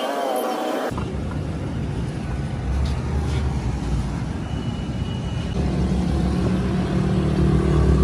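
Tractor engine running steadily with a deep, low hum. It starts abruptly about a second in and gets louder toward the end.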